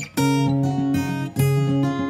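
Background music: acoustic guitar playing chords, with short breaks between phrases.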